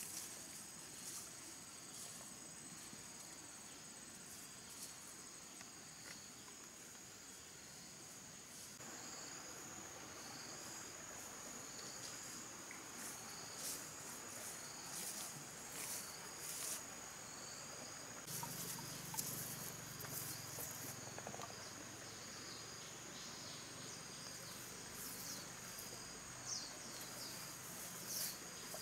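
Insects calling in a steady high-pitched drone, with a second call pulsing on and off beneath it, over footsteps and brush crackling as someone walks through leafy forest undergrowth.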